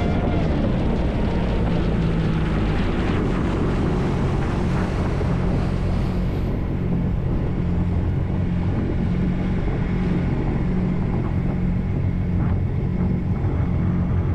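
Kawasaki Ultra 310 jet ski's supercharged four-cylinder engine coming off the throttle: its note falls at the start, then settles to a steady low running sound. Wind and water rush fade by about six seconds in as the ski slows off the plane.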